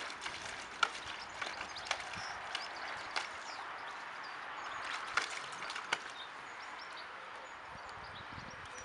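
English Mastiff puppy at a plastic water basin, drinking and stepping into the water. The result is irregular splashes, clicks and knocks over a steady outdoor hiss.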